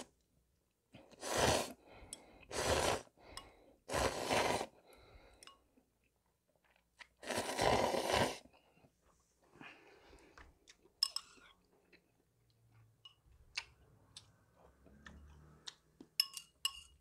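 A person slurping ramen broth straight from the bowl: four long, loud slurps in the first eight seconds or so. After that come faint mouth sounds and a few light clicks near the end.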